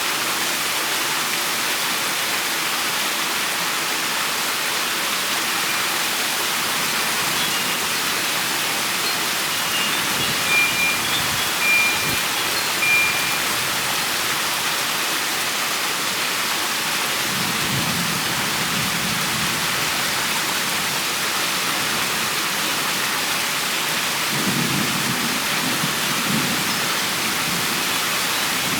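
Steady rain shower hissing, with low thunder rumbling twice in the second half. A few short high chirps sound about a third of the way in.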